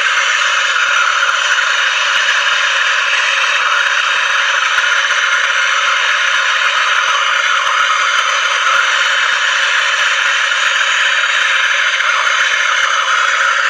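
Hand-held MAP gas torch burning with a steady hiss while brazing the copper pipe joint on a fridge compressor.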